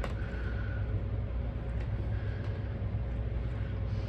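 Steady low room hum, with a few faint clicks and rustles of a plastic Blu-ray case and its paper cover insert being handled.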